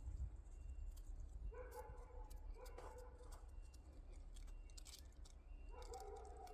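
Domestic cat meowing three times: two short meows close together, then a longer one near the end.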